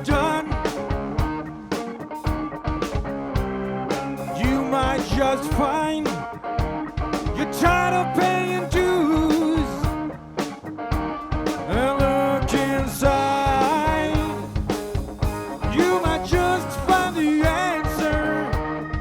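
Blues band playing live: an instrumental break with a lead line of bending, sliding notes over bass and steady drums.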